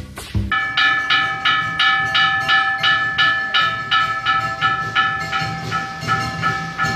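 Ceremonial percussion: a bell-like metal instrument struck rapidly and evenly, about four or five strokes a second, each stroke ringing with several steady tones, over low drumming. It comes in about half a second in, after a few drum beats.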